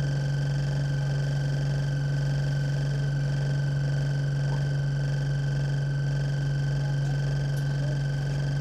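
Enviro 200 Dart single-deck bus running, heard from inside the passenger cabin: a steady low engine hum with fainter steady higher tones above it, unchanging throughout.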